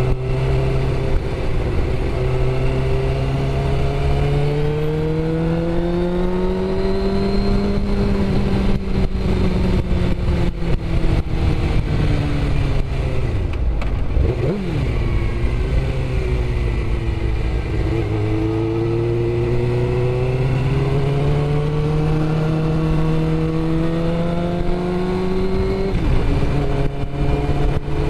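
Suzuki GSX-R sport bike's inline-four engine heard from the rider's seat, with wind rush. The revs climb steadily for several seconds, fall away as the bike slows to low revs about halfway through, then climb again, with a gear change near the end.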